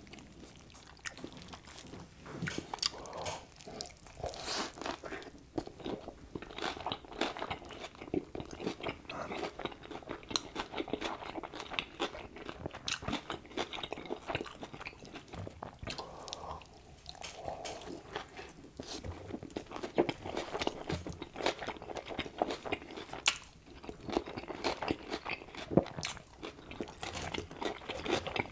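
Close-miked, wet chewing and biting of a cheeseburger: a dense, irregular run of smacks, squelches and small crunches.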